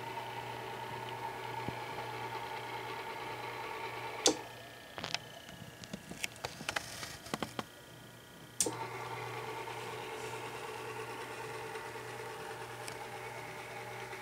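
Small electric motor of a display turntable humming steadily. About four seconds in, a sharp click comes and the hum stops, followed by a few light clicks and knocks. A little past eight seconds, another sharp click brings the hum back.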